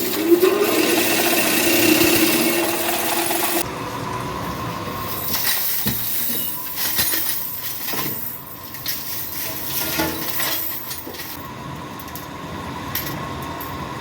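A motor-driven workshop tool running with a rising hum, cutting off suddenly after about three and a half seconds, followed by scattered clicks and knocks.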